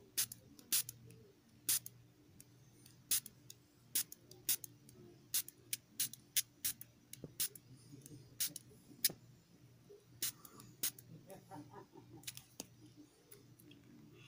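Trigger spray bottle misting water into a plastic deli cup: around fifteen quick, hissy spritzes at an uneven pace over about ten seconds. Near the end they give way to soft handling sounds.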